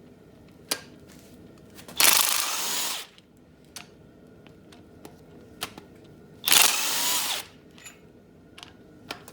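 Power tool run in two short bursts of about a second each, backing bolts out of a 5.3 L LS engine during teardown, with a few light clicks of tools and parts between the bursts.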